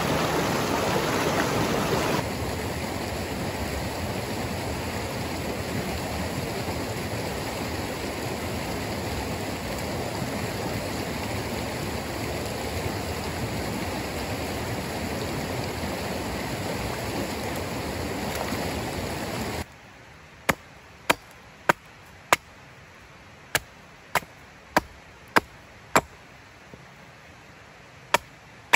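Stream water rushing steadily. About two-thirds of the way through it cuts to sharp chopping strikes on wood, roughly one every half second, in short runs with brief pauses.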